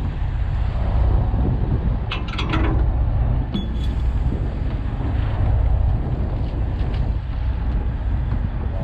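The boat's Detroit 60 Series diesel engine runs steadily at low revs, a low drone with wind buffeting the microphone. A few brief clatters come about two and three and a half seconds in.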